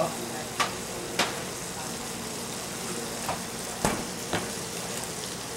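Fish fillets frying in brown butter in a pan, a steady sizzle. A few sharp clicks and knocks sound over it, the loudest about four seconds in.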